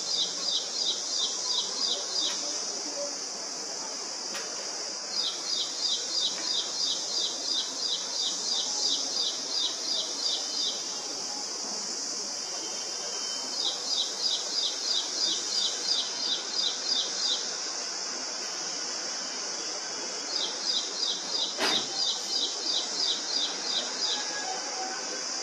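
A songbird singing four phrases of rapid repeated notes, about four a second, each phrase a few seconds long with pauses between. A steady high hiss runs underneath, and there is one sharp click near the end.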